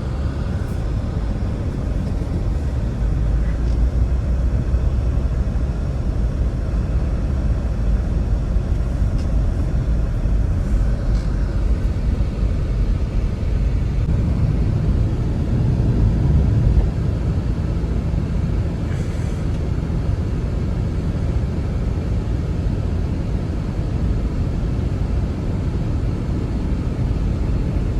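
Snowstorm wind blowing hard, a steady low rumble that swells briefly about halfway through.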